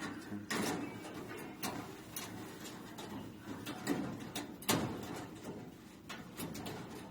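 Irregular clicks, knocks and scraping from handling and dismantling the parts of a gas griddle. The loudest knocks come about half a second in and again just before the five-second mark.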